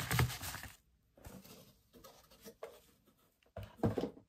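Tissue paper and packaging rustling and crinkling in short bursts, with quiet gaps, as someone rummages through it, once at the start and again near the end.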